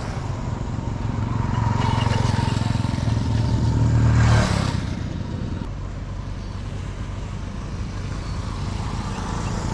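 Road traffic: a motor vehicle's engine hum grows louder and passes close by about four seconds in with a brief rush of air, then a lower steady engine hum continues.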